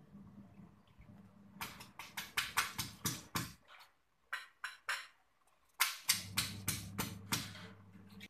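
Stone pestle pounding in a stone mortar, crushing garlic, shallot, ginger and lemongrass into a spice paste: runs of sharp knocks at about four a second, with short pauses between the runs.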